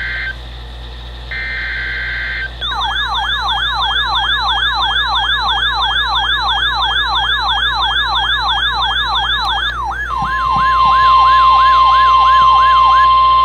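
NOAA weather alert radios sounding their alarm for a flash flood warning. A short electronic beep is followed by a rapid siren that sweeps down in pitch about four times a second. About ten seconds in, the steady NOAA Weather Radio warning alarm tone joins it.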